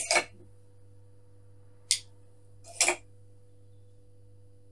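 Crochet hooks being handled while someone searches through them: a quick double tap at the start, a sharp high click about two seconds in and another tap just before three seconds, over a faint steady hum.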